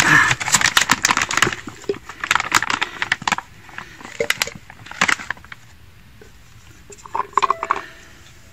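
Plastic bag of frozen boilies crackling and rustling as it is handled, dense clicks for about the first three seconds that thin out and stop by about five seconds in.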